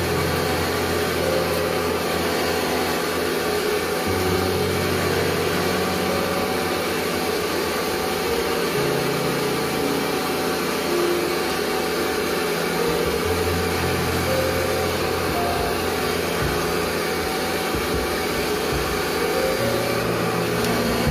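A steady machine noise, even and unchanging, with low background music notes underneath that change pitch every few seconds.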